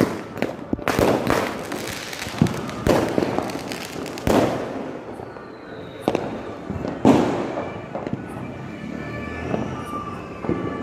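Firecrackers going off: a rapid string of sharp cracks for the first four seconds or so, then a few separate bangs, the loudest about six and seven seconds in.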